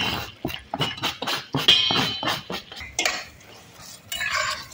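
A metal utensil knocking and scraping against a cooking pot in a quick run of clinks, with a short metallic ring about two seconds in, as chopped tomatoes are stirred into the frying peppers and onions.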